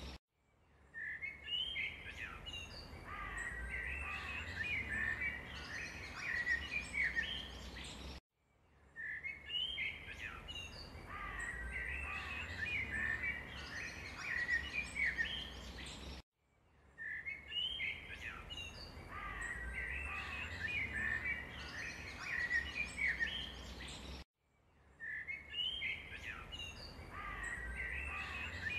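Many small birds chirping and twittering over a low rumble, as one stretch of about eight seconds that repeats, cut by a brief silence roughly every eight seconds.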